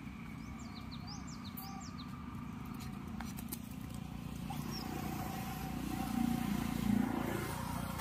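Outdoor background: a steady low rumble with a few short high bird chirps in the first couple of seconds. A louder muffled rumble swells in the second half and fades near the end.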